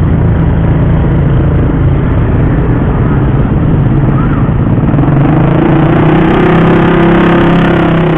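Small motorcycle and scooter engines running close by as the bikes ride slowly over a railway level crossing, a steady engine hum. About five seconds in, one engine pulls harder and a higher engine note comes in.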